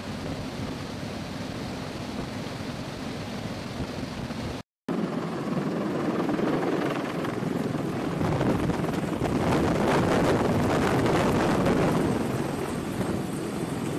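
Steady rushing noise of a CH-53 heavy-lift helicopter in flight, mixed with wind. After a brief dropout about a third of the way in, it gives way to the louder rotor wash and blade chop of a CH-53 hovering low overhead, loudest near the end.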